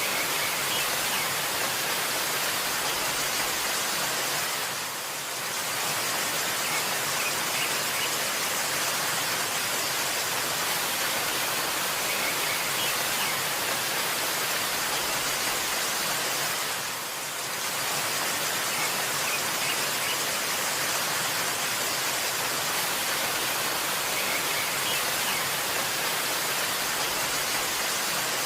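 Waterfall: a steady rushing hiss of falling water that dips briefly about every twelve seconds, with a few faint high bird chirps now and then.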